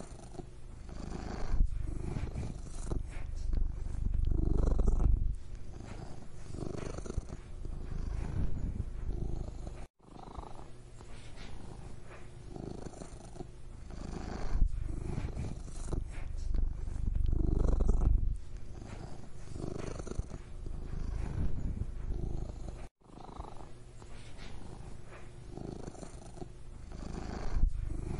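Domestic cat purring: a steady low vibrating rumble that swells and eases in slow cycles every few seconds. It cuts out briefly twice.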